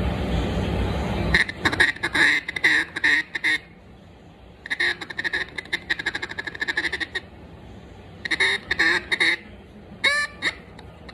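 A duck call with a bois d'arc (Osage orange) insert in a green barrel, blown in three runs of short, rapid quacks, with a couple of pitch-gliding notes near the end: test blowing while the insert is being tuned.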